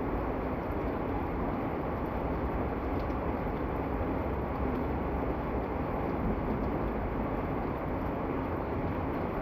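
Heavy rain falling, a steady, unbroken rush of noise with faint scattered patters.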